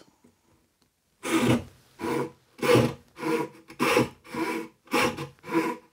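Backsaw cutting into a small block of wood: a regular run of rasping push and pull strokes, nearly two a second, starting just over a second in. The saw reaches 20 mm deep in five strokes.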